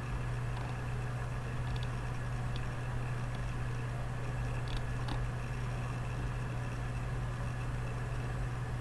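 Steady low hum with background hiss picked up by the recording microphone, with a few faint clicks.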